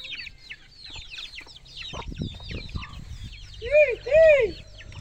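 Chickens in a flock: chicks peeping constantly in quick, short, falling chirps. Two louder, short rise-and-fall calls come close together about four seconds in.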